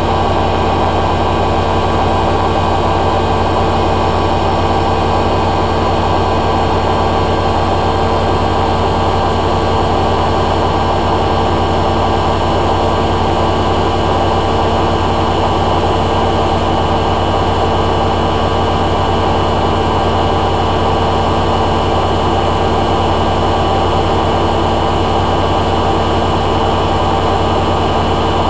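Hoover A3786 Logic Deluxe washing machine in its final spin, the drum and motor spinning at a steady high speed with a loud, even whine and hum.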